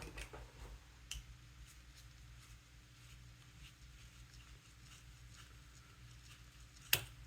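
Faint scattered clicks and ticks of small parts of a Scubapro Air 2 inflator being handled and unscrewed by hand, with one sharper click about seven seconds in.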